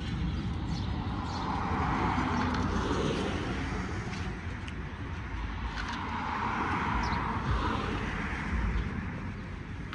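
Two vehicles passing by, each swelling up and fading away, one about two seconds in and another around seven seconds in, over a steady low rumble.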